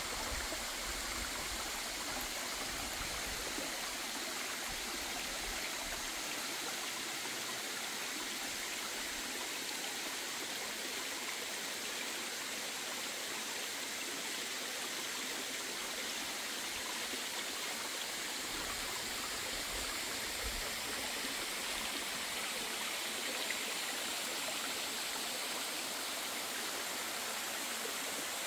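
Steady rush of running water from a shallow stream flowing over rocks, blended with a tall waterfall.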